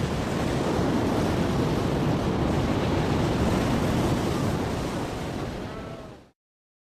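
Ocean waves and surf washing steadily, fading out and cutting to silence about six seconds in.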